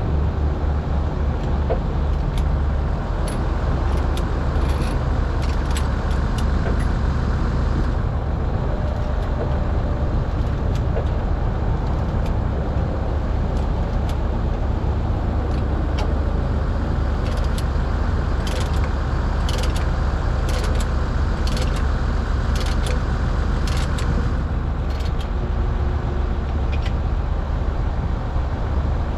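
Heavy diesel engine idling steadily, with many sharp metallic clinks of chain being handled over it, clustered in the second half.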